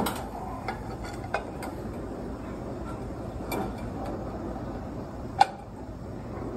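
Shells and metal utensils clinking and tapping while shellfish are handled on the grill: about six sharp clicks, the loudest about five and a half seconds in with a short ring.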